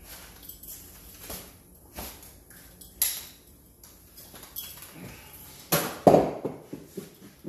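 Metal tools and parts clinking and knocking as they are handled, with a louder clank about six seconds in.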